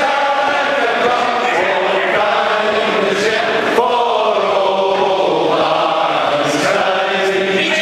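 A large group of men singing together in unison, slow, held notes that move gently in pitch without a break.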